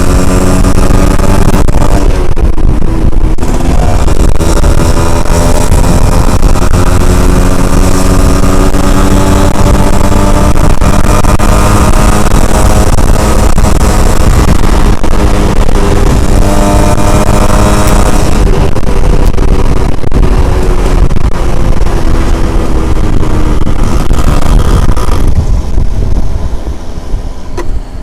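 Yamaha Alfa two-stroke motorcycle engine running under way, its pitch falling and rising with the throttle, over a loud low rumble. Near the end the sound drops away and gets quieter.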